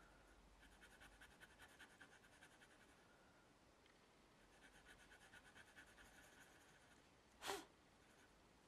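Faint scratching of a black Faber-Castell Pitt pastel pencil on velour pastel paper, in two spells of quick short strokes as the dog's pupil is filled in dark. A short breath-like puff of noise comes near the end.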